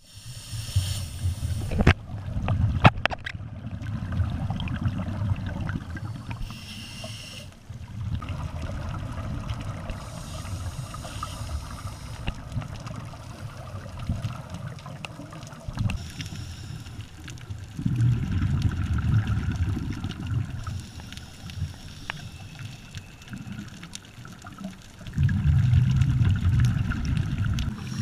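Scuba regulator exhaust bubbles underwater, heard through a GoPro's waterproof housing: bursts of low bubbling rumble from divers' exhalations every several seconds, quieter between breaths. A few sharp clicks come about two to three seconds in.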